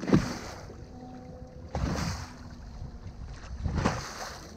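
Waves slapping against the bow of a small fishing boat in choppy water, in surges about every two seconds, with wind buffeting the microphone.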